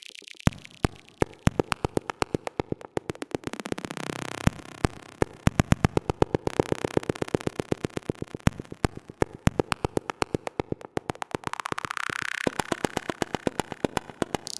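Electronic background music: a fast, even, clicking beat with synthesizer sweeps that fall and rise in pitch.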